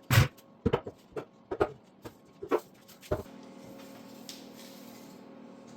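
A stripped 1973 Honda ATC70 frame being lifted off its buckets and flipped over: a run of about eight knocks and clunks over three seconds. After them a steady low hum carries on.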